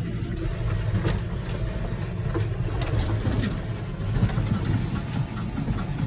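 John Deere 6215R tractor's six-cylinder diesel engine running steadily under the load of a plough, heard from inside the cab as a continuous low hum with a few light knocks.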